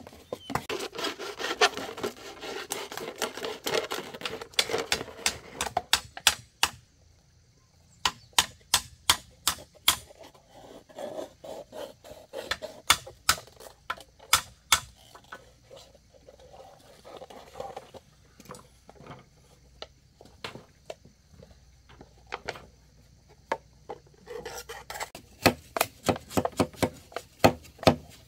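Knife blades cutting and scraping bamboo and a plastic bottle: a rasping scrape mixed with quick strokes for the first few seconds, then runs of sharp clicking cuts, a few a second, broken by short pauses.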